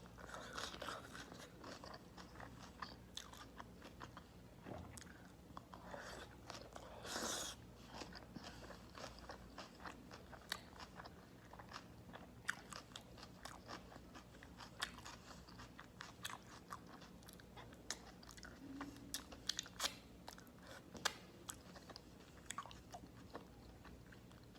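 Close-miked eating: crunching and chewing of a beef burger wrapped in raw cabbage leaves, with many small crackles throughout and one louder crunch about seven seconds in.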